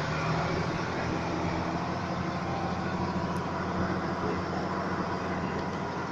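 Minibus engine running steadily, with road and wind noise, heard from inside the moving passenger cabin.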